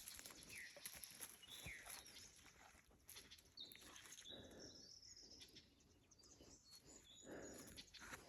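Faint bird calls: a scatter of short whistled notes, some held flat and high, a couple sliding downward, with soft clicks and rustles underneath.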